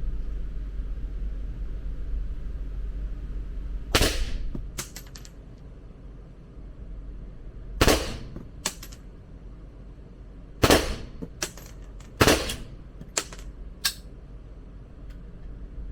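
Four loud gunshots a few seconds apart, with several fainter sharp cracks between them.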